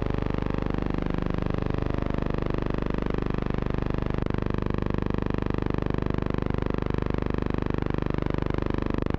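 Steady hum and hiss with a fast, even flutter and no other events: the noise of a blank soundtrack on silent archive film.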